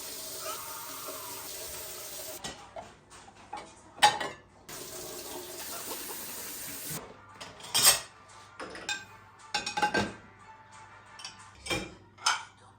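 Kitchen tap running in two spells while dishes and cutlery clink and clatter in the sink, with several sharp clanks, the loudest about four and eight seconds in.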